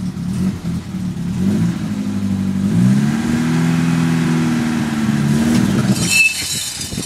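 Engine of a WWII Weasel tracked vehicle running, revving up with a rising pitch about three seconds in and holding there. The engine sound drops away about six seconds in, and brief metallic clinks follow near the end.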